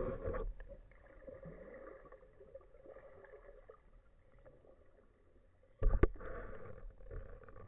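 Underwater noise of a spearfisherman swimming with his speargun: water swishing and movement, with a burst at the start and a sharp knock about six seconds in.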